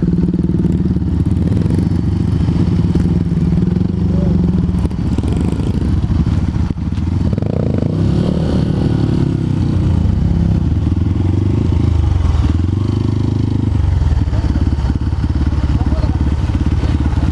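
Honda CRF150L's air-cooled single-cylinder engine running while riding, its note rising and falling a few times with throttle and gear changes.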